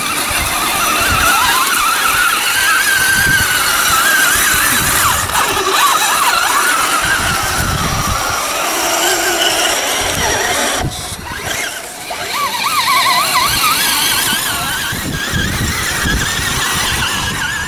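Electric motors and gearboxes of radio-controlled scale crawler trucks whining, the pitch wavering up and down as the throttle is worked, with a short break about eleven seconds in.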